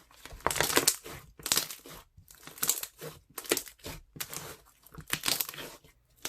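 Crunchy slime made from clear glue, squeezed and pressed by hand so that its air bubbles crackle and pop, in about six bursts roughly a second apart.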